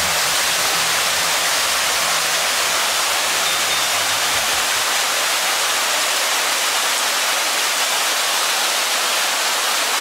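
Small waterfall cascading over rock ledges into a creek pool: a steady rush of falling and churning water that cuts off suddenly at the end.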